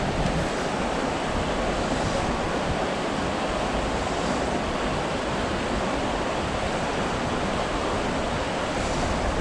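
Steady rushing of river water, the river running high after rain.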